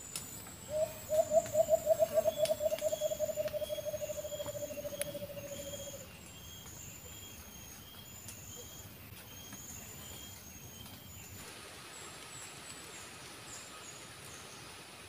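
White-eared brown dove calling: a run of about twenty low hooting notes starting about a second in, coming quicker as they slowly drop in pitch and fade over some five seconds. High, evenly repeating insect chirps run behind it until about eleven seconds in.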